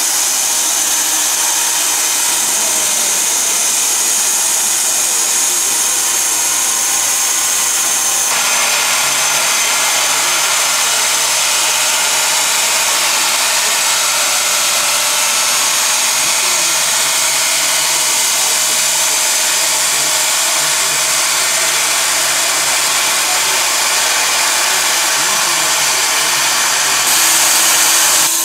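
A SCAD 700 band sawmill, driven by an electric motor, runs steadily while its band blade cuts lengthwise through a log. The character of the noise changes abruptly about eight seconds in and again near the end.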